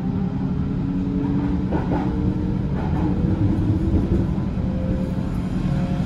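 Berlin S-Bahn electric train running, heard from inside: a steady low rumble under a motor whine that slowly rises in pitch as the train picks up speed leaving the station. A few knocks from the wheels over the track come about two and three seconds in.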